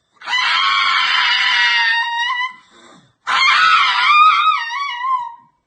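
An animal screaming: two long, high-pitched screams, the second wavering up and down.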